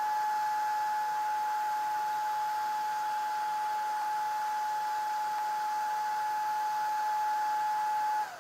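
Shark Vertex Pro cordless stick vacuum running in its automatic (medium) mode: a steady high motor whine over rushing air. Near the end it is switched off and the whine begins to fall away.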